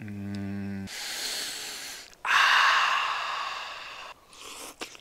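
A man hums a short 'mmm', then blows on a forkful of hot instant noodles to cool them: one soft breath, then a longer, louder blow that fades away, and a short breath near the end.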